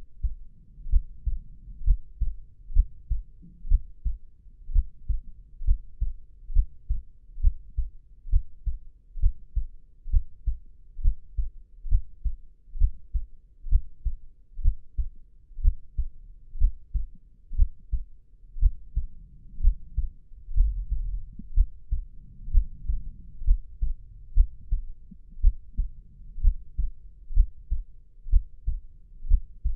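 Human heartbeat, played close and low: a steady, slow lub-dub of soft double thumps, a little over one beat a second.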